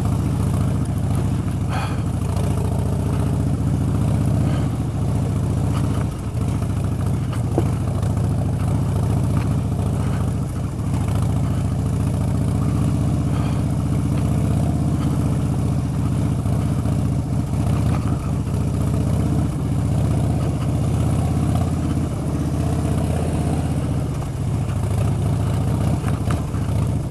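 Harley-Davidson Dyna Street Bob's air-cooled V-twin running at low, steady revs as the bike rolls along a rough gravel track, with occasional knocks and clatter from the stones and the bike.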